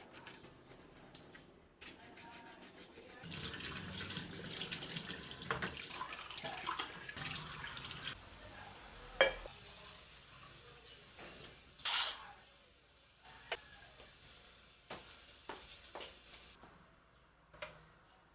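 Kitchen tap water running into a sink for about five seconds, then shut off. A few sharp knocks follow, spread over the rest of the stretch.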